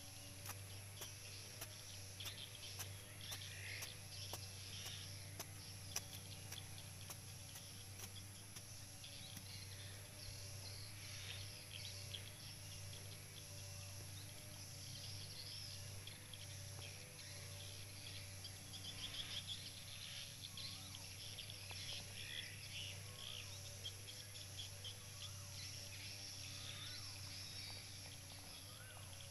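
Birds chirping and insects calling over a faint steady low hum, with a few sharp knocks in the first several seconds as a machete digs into soil.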